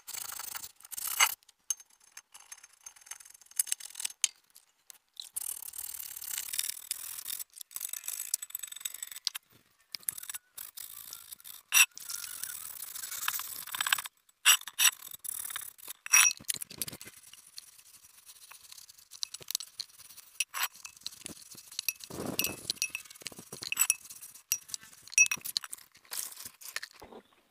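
Sandpaper rubbing by hand on an aluminium alloy car wheel, wet-sanding it in short, irregular scratchy strokes with small clinks. Water is poured over the wheel near the end.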